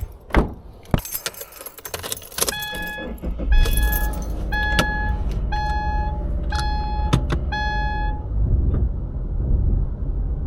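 Keys jangling and a few clunks, then a Subaru's warning chime ringing about seven times in a steady pattern. A few seconds in, the car's flat-four engine starts and runs at a steady low idle after the fresh oil change.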